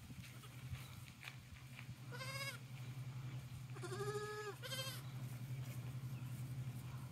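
Goat kids bleating: three high calls, one about two seconds in and two close together about four seconds in.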